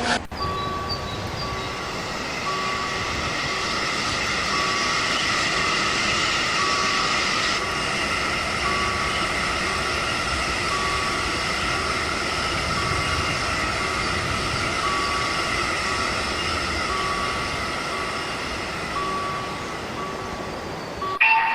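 Railway sound effect of a train running steadily, with a faint beep repeating at short, even intervals.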